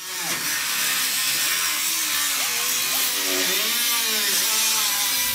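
A shop power or air tool running steadily, giving a loud, even hiss without a break.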